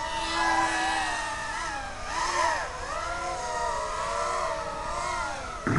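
Racing quadcopter's brushless motors whining, the pitch rising and falling with the throttle. A sudden loud knock near the end as the quad crashes.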